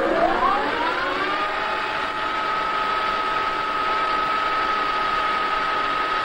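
Colchester centre lathe spindle and drive starting up: a whine rising in pitch over about the first second, then holding as a steady high whine.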